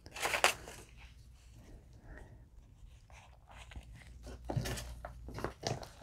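Paper pages of a handmade journal being turned and handled: rustling and crinkling, loudest about half a second in, with more rustling and a few soft taps near the end.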